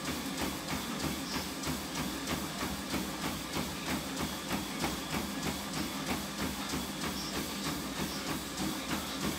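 Running footfalls pounding on a motorised treadmill's belt and deck, an even beat of about three strides a second, over the treadmill's steady motor hum.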